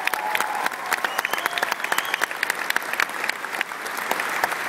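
Audience applauding, a dense patter of many hands clapping, with some single claps standing out sharply.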